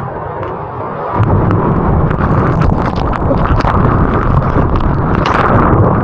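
Surf noise on a close microphone: a loud rush of breaking whitewater and wind buffeting, surging up about a second in and staying, with sharp crackling splashes throughout.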